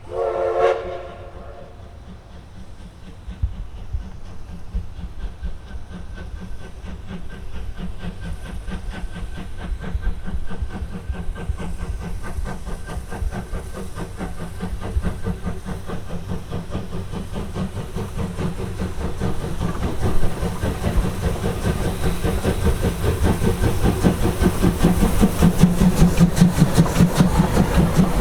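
C58 steam locomotive sounds one short whistle blast, then pulls away with a steady chuffing beat and the hiss of steam from its drain cocks. The beat quickens and grows louder toward the end as the train draws near, with wheels clicking over the rail joints.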